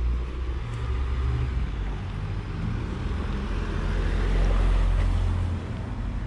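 Street traffic: a vehicle passing close by over a steady low rumble, its noise swelling to a peak about four to five seconds in and then fading.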